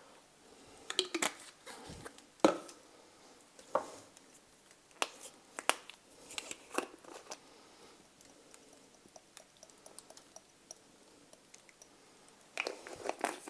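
Scattered clicks and knocks of small spice jars and their screw lids being picked up, opened and set down on a tabletop, with light rustling. A denser patch of handling noise comes near the end.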